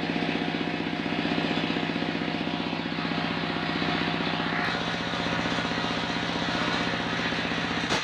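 Stationary engine driving a large sawmill circular saw, running steadily with a rapid, even pulsing beat as the blade spins.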